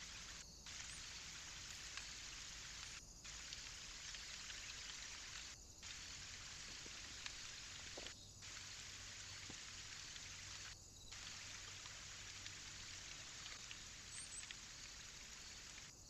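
Faint steady hiss of outdoor ambience with scattered tiny ticks, broken by short dropouts every two to three seconds where the sped-up clips are joined.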